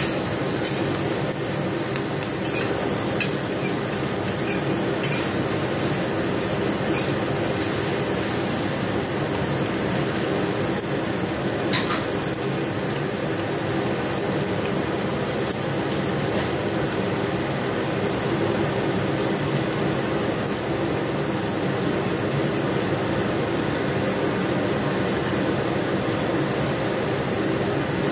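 Sliced bell peppers and mushrooms sizzling in a steel wok over a gas burner, with a metal spatula scraping and clinking against the wok through the first few seconds and once more about twelve seconds in. A steady hum runs underneath.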